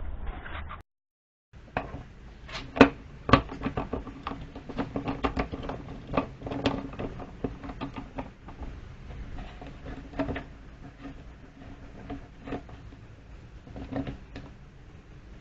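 Scotty rod holders being handled and fitted into their mounting bases: a string of irregular plastic clicks and knocks, the loudest about three seconds in.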